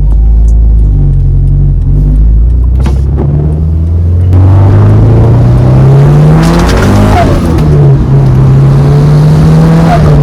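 Tuned turbocharged Subaru WRX hatchback's flat-four engine under hard acceleration: a low steady drone that climbs sharply in revs from about four seconds in, drops briefly near seven seconds as a gear changes, then pulls again. It breathes through a titanium exhaust with equal-length headers.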